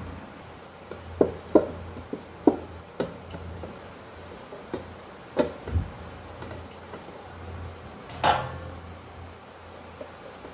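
Hands pressing and spreading oiled parotta dough on a steel plate: a handful of short taps and knocks at irregular intervals, most of them in the first three seconds, over a steady low hum.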